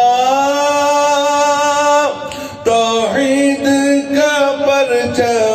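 A man singing an Urdu naat in praise of the Prophet, solo voice: one long held note for about two seconds, a brief break, then a wavering, ornamented melodic line.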